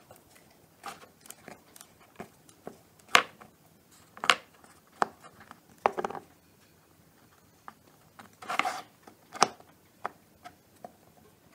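Irregular small clicks and taps of wooden skewers and fingers on a wooden board as pink fondant is pressed and wrapped around the skewers, with a brief scraping rustle about two-thirds of the way through.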